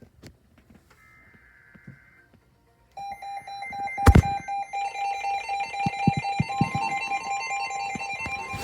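Emergency Alert System broadcast tones: a faint, short electronic data burst, then, about three seconds in, a steady electronic alert tone that higher tones join, with a sharp click a second after it starts.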